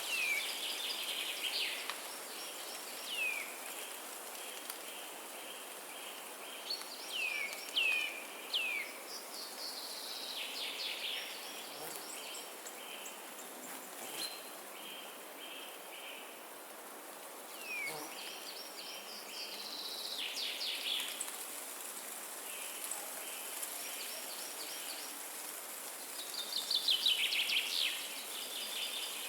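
Forest ambience: several songbirds calling, with short downward-sliding chirps and rapid high trills in clusters, over a steady hiss of wind in the trees. A few faint clicks are heard now and then.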